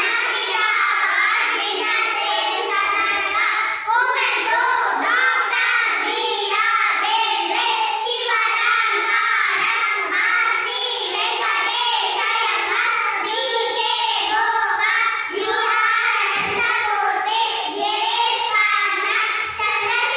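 A group of young girls' voices chanting in unison in a rhythmic, sing-song recitation.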